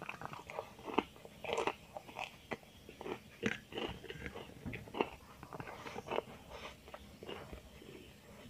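Close-miked mukbang eating sounds: a person chewing and biting with irregular wet smacks and crisp crunches, eating spicy stingray with rice and kerupuk crackers.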